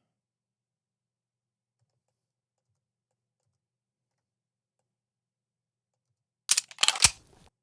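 Silence for most of the stretch. Near the end comes a gun sound effect played back from a library: a quick run of sharp metallic clicks with one low thud, lasting about a second.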